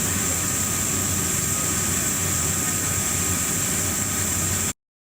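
Gas turbine of an emergency power-supply vehicle running steadily, a loud rushing noise with a constant high whine. It cuts off abruptly near the end.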